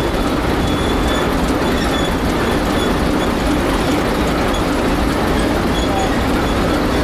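Class 749/751 'Zamračená' diesel locomotive's engine running steadily, a loud constant rumble, with a faint high squeal coming and going.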